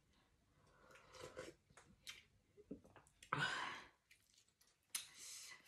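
A person eating hot chicken soup with a spoon: soft chewing and mouth sounds, with one louder, breathy mouth sound about three and a half seconds in. A spoon scrapes in the metal pan near the end.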